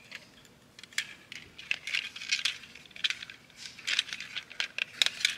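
Hard plastic parts of a Hasbro Titans Return Trypticon toy clicking, tapping and scraping against each other as they are handled, in a quick irregular series.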